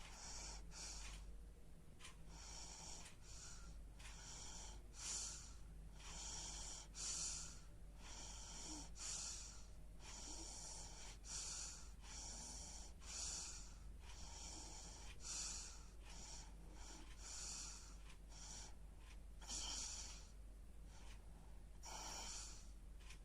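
Sleeping baby snoring softly: faint, rhythmic breaths about one every second or so, with a hissing, breathy edge.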